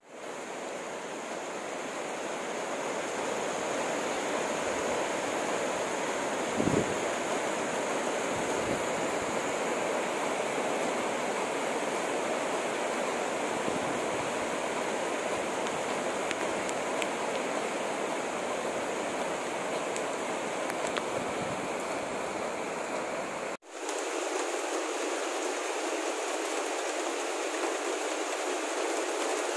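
Heavy rain falling steadily, a dense even hiss, with one brief low thump about seven seconds in. Near the end the sound drops out for a moment and comes back thinner, without its low end.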